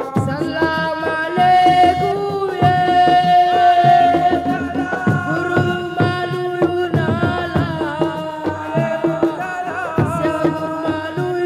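Loud music with a drum beat under a melody line of long, bending held notes.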